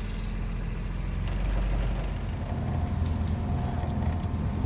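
Sailing yacht's inboard engine running steadily, a low rumble that grows stronger about halfway through, mixed with water rushing past the hull.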